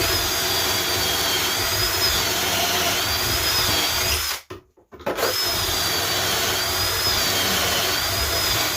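Power drill boring pocket holes through a pocket-hole jig: two runs of about four seconds each with a brief stop between, the motor's whine wavering slightly as the bit cuts.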